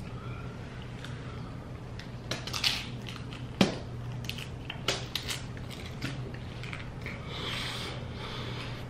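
Close-up biting and crunching of a cheese-covered tortilla chip: a few crisp crunches, the loudest about three and a half seconds in, then chewing, over a steady low hum.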